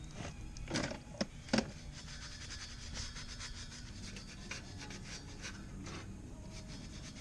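Hand scraping and rubbing on metal: a few sharp knocks in the first two seconds, then a run of quick, irregular scraping strokes, as when a mower blade or bed knife is worked by hand to smooth out nicks.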